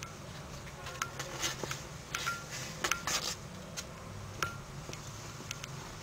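Kittens play-fighting on upholstery and cardboard: irregular light clicks and scratches from their claws and scrabbling paws, about two or three a second, over a low steady hum.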